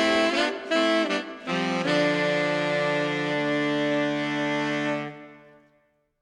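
Instrumental background music: a few short notes, then a long held final chord that fades away to silence shortly before the end.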